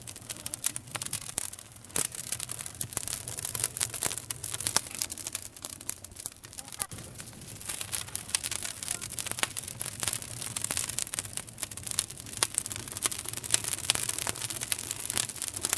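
Campfire burning with dense, irregular crackling and frequent sharp pops.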